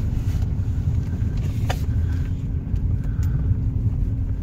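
A 1986 Alfa Romeo Spider Veloce's 2-litre twin-cam four-cylinder running while being driven, heard from inside the cabin as a steady low engine and road rumble with an even hum. There is a single faint click near the middle.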